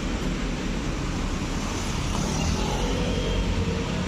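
Steady road traffic noise: an even, low-weighted hum and hiss with no distinct events standing out.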